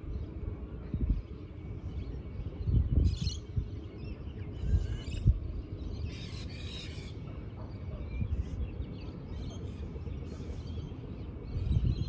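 Birds calling in short bursts several times, over a low rumble of wind on the microphone that swells in gusts.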